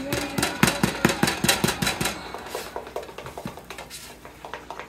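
Spatula tapping rapidly against a flat griddle pan, about six sharp clacks a second for the first two seconds, then a few lighter taps as it slides toward the pancake.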